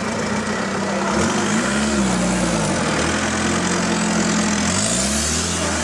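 Engine of a modified off-road 4x4 running at low revs, its pitch swelling and dropping back twice as the driver works the throttle on a slow climb.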